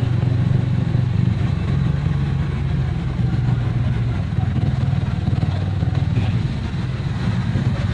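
Engine of a moving road vehicle running steadily at cruising speed: a low, even drone.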